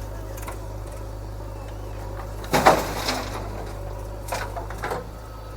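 Heavy diesel engine running with a steady low rumble, with a loud sudden noise about halfway through and a few smaller ones near the end.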